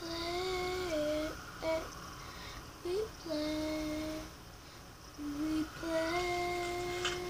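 A child singing long, steady held notes with short gaps between them, plus a quick upward slide about three seconds in.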